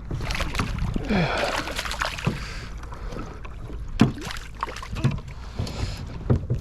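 Knocks and water splashing on a fishing kayak while a hooked fish is played and brought in, with a burst of splashing about a second in and a sharp knock about four seconds in.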